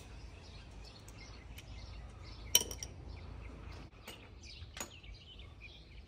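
Sharp metallic clinks of a hand wrench working on the steel bolts of an ATV's engine and transfer case, a handful of separate clicks with the loudest cluster about two and a half seconds in. Birds chirp faintly in the background.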